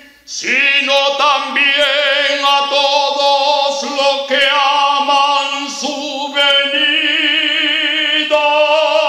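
Solo male voice chanting the closing phrase of an Orthodox Epistle reading in the Slavic style, unaccompanied. After a short breath it sings slow, drawn-out notes with wide vibrato, and the last note is held long.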